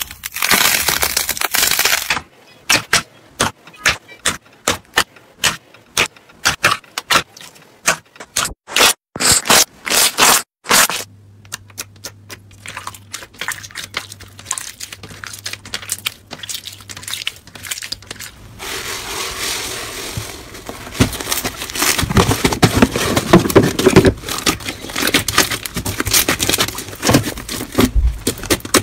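Slime being squeezed and worked by hand: a run of sharp crackles and pops, loud and separate in the first part, then a dense, continuous crackling in the last third.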